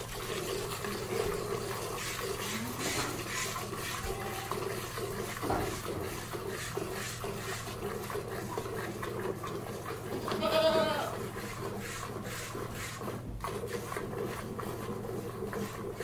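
A goat being milked by hand: milk squirts out in a run of short strokes over a steady noisy background. The goat bleats once, a wavering call, about ten seconds in.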